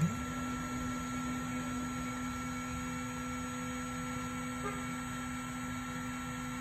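Stepper motors of a 3018 desktop CNC router driving a rapid traverse, a steady hum at one pitch after a quick rise as the axis speeds up at the start. The machine is carrying the tool over to its touch-off switch to measure the tool-length offset.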